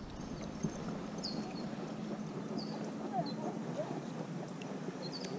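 A bird chirping now and then, short high falling chirps every second or so, over a soft steady rush of river water.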